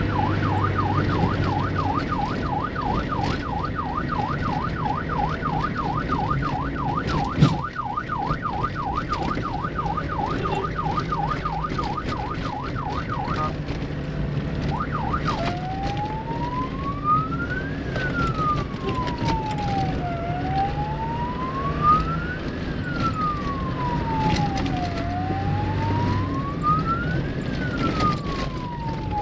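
Electronic siren on the course-check off-road vehicle, heard from inside the cab. It sounds a fast yelp that stops about 13 seconds in, then after a short gap a slow wail rising and falling about every five seconds, over the vehicle's engine running on the dirt track. There is a single knock about seven seconds in.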